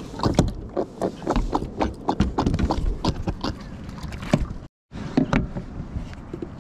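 Irregular knocks, taps and rattles on a plastic sit-on-top kayak's deck as the rod and a freshly landed giant trevally are handled. The sound cuts out for a moment about three-quarters of the way through.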